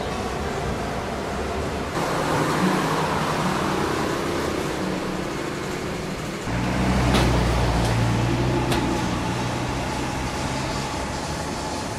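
Road traffic noise, a steady wash of passing engines and tyres. About halfway through a heavier engine rumble comes in, louder and lower, with a few sharp clicks over it.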